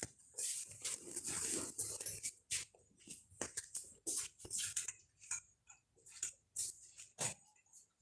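Irregular faint clicks, taps and scratchy rustles, several a second, thicker in the first two seconds.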